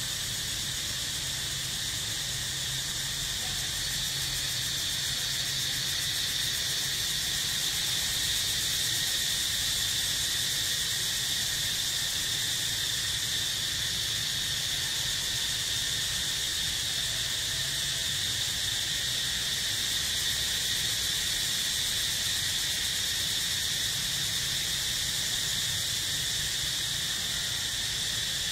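Steady, continuous high-pitched drone of insects, unbroken throughout.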